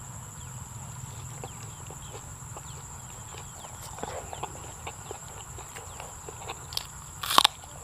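Close-up chewing of a mouthful of raw beef laab and sticky rice, with small wet mouth clicks, over a steady high-pitched insect drone. One short, sharp crackle comes near the end.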